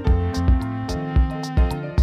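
Background music with a steady beat: drum hits about twice a second over sustained pitched notes and a bass line.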